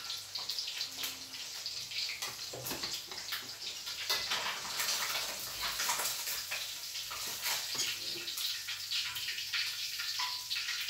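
Catfish deep-frying in a wok of hot oil: a steady sizzle with constant fine crackling and popping while the fried pieces are lifted out to drain.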